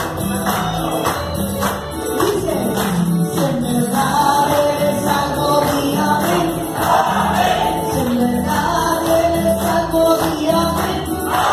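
An upbeat Catholic praise song performed live: a woman sings lead into a microphone with voices joining in, over amplified accompaniment and hand-clapping on a steady beat.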